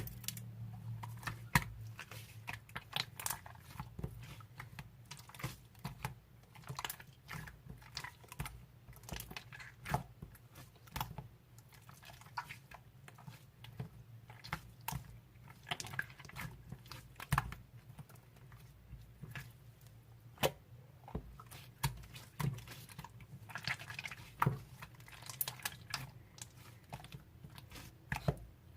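Purple slime being squeezed and poked by hand, giving a steady stream of irregular sticky clicks and pops.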